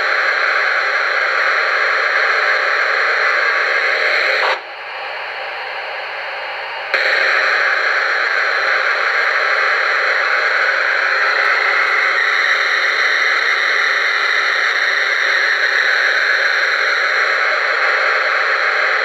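QSI Maxx Traxx sound unit playing a steady steam-hiss effect through its speaker. Between about five and seven seconds in it drops to a quieter, thinner hiss with a faint low hum, then returns at full level.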